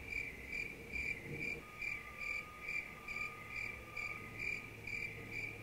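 Cricket chirping in short, evenly spaced chirps, a little more than two a second, each a high pitched trill. It starts and stops abruptly, as an added comic sound effect for an awkward silence.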